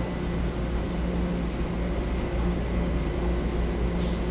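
TRA EMU900 electric multiple unit standing at the platform, its onboard equipment giving a steady low hum with a gently pulsing drone. A brief air hiss comes near the end.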